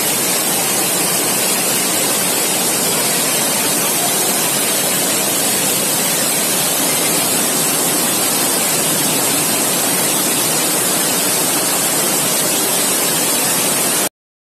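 Floodwater rushing in a torrent down a street, loud and steady. It cuts off suddenly near the end.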